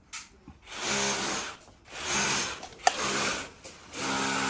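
Power drill run in four short bursts of about a second each, the motor whirring up and stopping each time, with a sharp click about three seconds in.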